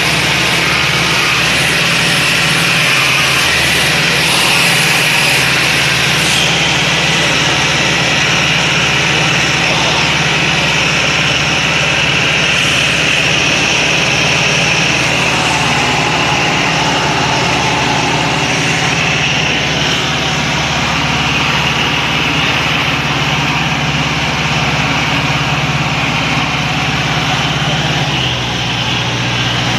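Jodel D112's Continental A65 flat-four engine and propeller running steadily in cruise flight, heard from inside the cockpit.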